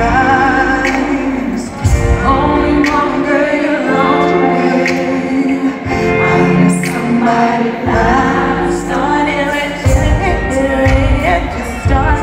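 Women singing a song together through a microphone and the stage sound system of a large hall, the voices wavering with vibrato over steady held accompanying tones.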